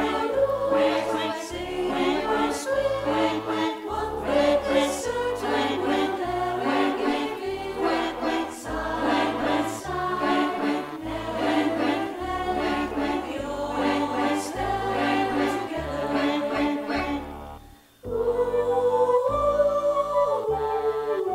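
Women's pop choir singing in harmony, with steady low bass notes underneath that change every second or so. The singing breaks off briefly near the end, then comes back on a held note.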